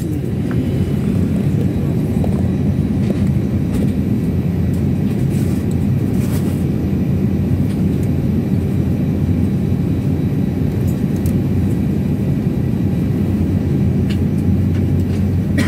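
Steady low drone inside an airliner's cabin, from the engines and air system, with a few faint clicks.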